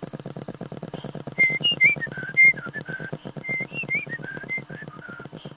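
A person whistling a short, wandering tune, with pitch glides between notes, over a fast, even clicking that stops near the end.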